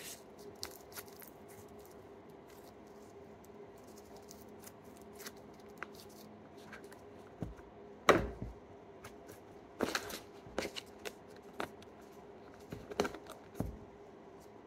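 Stretchy slime being pulled and handled, giving faint scattered clicks and crackles, then a few louder short knocks and clicks from about eight seconds in as it is pressed into a small plastic cup and the cup is handled.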